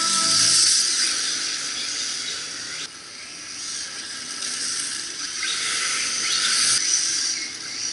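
1/10-scale 3Racing Sakura D4 electric RC drift car: high-pitched motor whine mixed with the hiss of its tyres on a wet surface, swelling and fading as it passes, with an abrupt drop about three seconds in.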